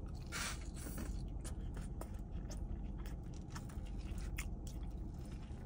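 A person chewing a mouthful of food close to the microphone, with soft, irregular mouth clicks and smacks over a low, steady rumble.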